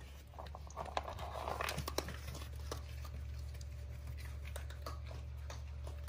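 Raccoon kits crunching dry kibble and scrabbling in a plastic dish: a run of sharp clicks and crunches over the first two seconds or so, then a steady low hum.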